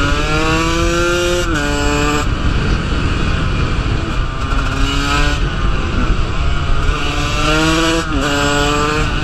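KTM 125 two-stroke dirt bike engine pulling hard under throttle, its pitch climbing and then dropping sharply at each gear change, about a second and a half, five and eight seconds in. Heavy wind noise sits under the engine throughout.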